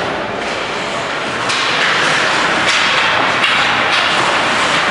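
Ice hockey play on a rink: skates scraping the ice and sticks knocking as players fight for the puck, over a steady hiss of arena noise.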